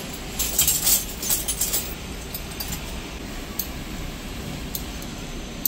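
Small metal tools clinking and scraping against a metal fitting as pliers and a wrench are worked on it. There is a cluster of clicks in the first two seconds and a few scattered single clicks later, over a steady low hum.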